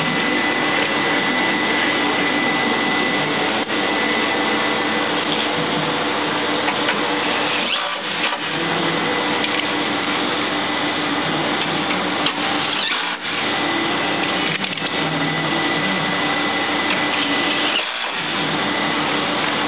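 Steady, loud mechanical whirring with a thin steady high whine running through it. The noise drops briefly three times, near 8, 13 and 18 seconds in.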